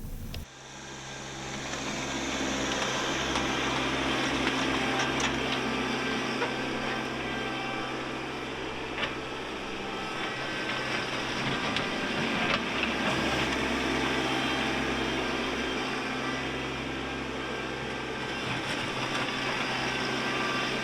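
Kubota B2650 compact tractor's three-cylinder diesel engine running steadily under load while dragging a box blade through shale, with a constant rushing noise and a few faint clicks over it. The sound swells in over the first couple of seconds.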